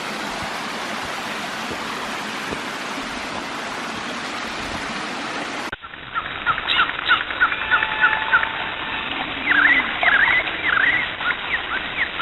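Steady rushing of running water, cut off suddenly about halfway through. Then birds chirp and call, many short rising and falling notes.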